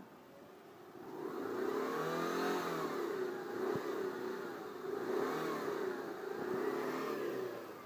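Subaru EJ25 2.5-litre flat-four petrol engine revved up and let fall back three times, the pitch rising and dropping with each blip.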